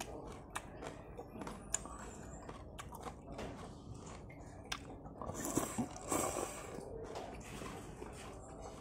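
Close-up mouth sounds of a man eating noodles with vegetables: wet chewing with small lip-smacking clicks, and a louder stretch of slurping about five and a half seconds in as a mouthful of noodles goes in.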